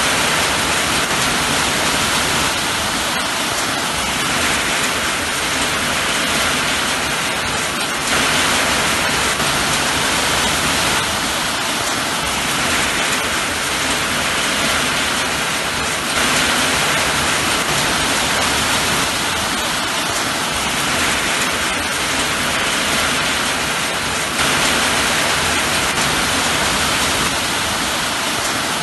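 Steady rain, an even hiss, rising slightly in level about every eight seconds.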